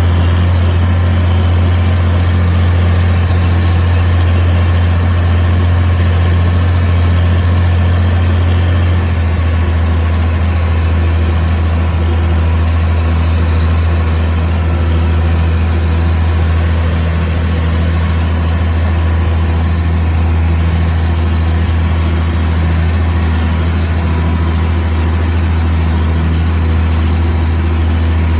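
Oliver 1850 tractor's diesel engine running steadily at low revs, heard from the driver's seat, its note dropping slightly about nine seconds in.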